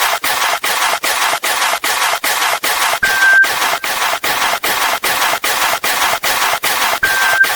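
Rapidly repeating sound effect: short bursts of harsh hiss about five times a second, with a brief high steady beep near the start and again about three seconds later.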